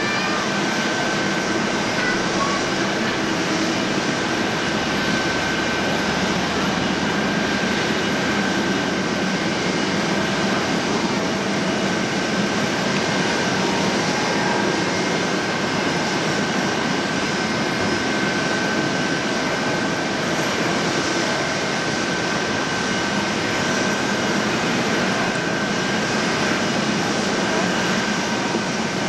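Jet airliner noise from a Boeing 787-9 during pushback: a steady, even rush with a constant high whine, unchanging throughout.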